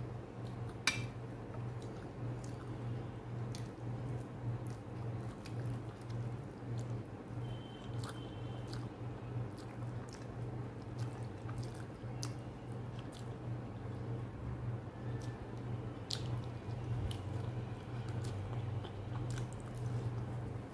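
Close-up eating sounds of a meal of rice and chicken dopiaza eaten by hand: small wet squishes, clicks and chewing as curry and rice are mixed with the fingers and a chicken leg is bitten. A sharp click about a second in, over a steady low hum.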